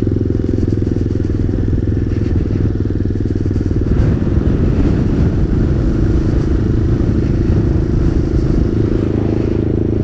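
Motrac M5 small supermoto motorcycle's engine running steadily under way at low speed, with a continuous low engine note throughout.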